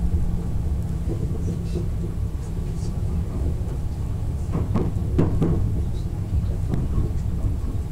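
Running noise inside an Odakyu 60000 series MSE Romancecar on the move: a steady low rumble of wheels on rail, with no inverter whine while it coasts. A few sharp clacks from the wheels over the track come about halfway through.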